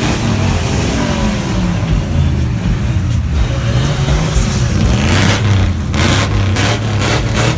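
Car engine revving, its pitch rising and falling, with a rough, crackling stretch about five seconds in.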